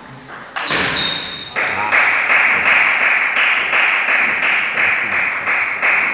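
Table tennis ball struck by rackets and bouncing on the table in a fast rally, ending about a second and a half in. Then a steady noise with soft regular beats, about two to three a second, takes over.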